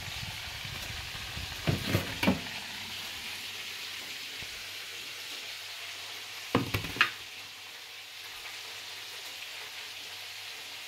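Steady sizzle of hot food, with two short bursts of clattering knocks, about two seconds in and again about seven seconds in.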